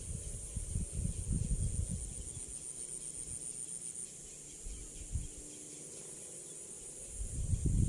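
Insects chirring in a steady high, fast-pulsing drone, with low rustling and handling bumps in the first few seconds and again near the end.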